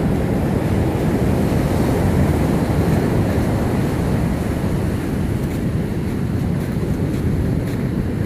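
Steady wind noise buffeting the microphone, mixed with the wash of surf on a sandy beach.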